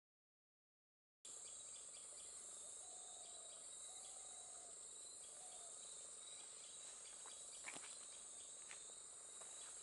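Faint, steady high-pitched insect chorus of forest crickets or cicadas, with a few short soft calls at a lower pitch and a couple of light clicks near the end. The sound drops out completely for about the first second.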